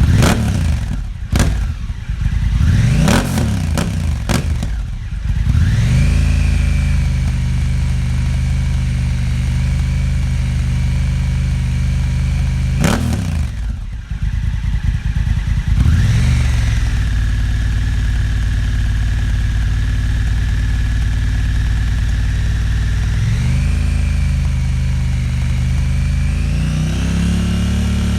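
Honda Africa Twin 1100 parallel-twin engine with a REMUS Black Hexacone exhaust: several quick throttle blips in the first few seconds, then long spells held at steady revs, with one short blip about halfway and the revs stepping up again near the end.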